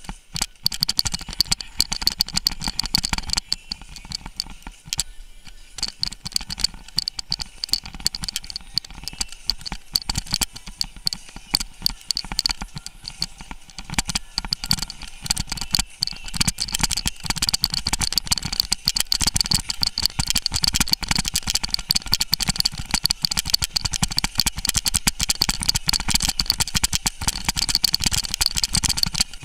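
Mountain bike and its mounted camera rattling and clattering without a break as it rolls fast over a rough gravel and stone track, with tyre and wind noise underneath. The clatter eases for a moment about four to six seconds in.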